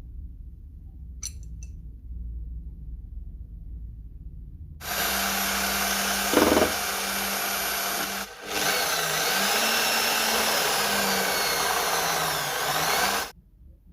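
Electric drill starting about five seconds in and running a homemade sanding drum, with the rasp of abrasive on wood. It dips briefly near the middle, and its pitch wavers in the second half before it stops shortly before the end.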